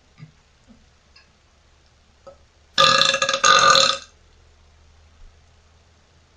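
A woman's loud, deep burp lasting about a second, with a brief break in the middle, about three seconds in. A few faint clicks come before it.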